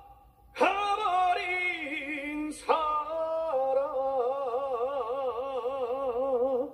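A man singing unaccompanied into a handheld microphone, in a Korean trot-style ballad. He sings two phrases with heavy vibrato, the second settling into a long, high sustained note with wide vibrato: the top of a song he has pitched in a high key.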